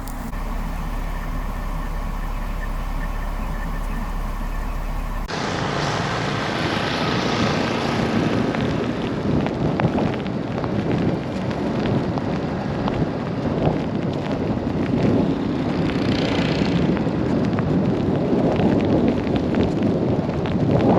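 A low, steady hum, then a sudden cut about five seconds in to strong blizzard wind rushing and buffeting the microphone in gusts, with scattered crackles.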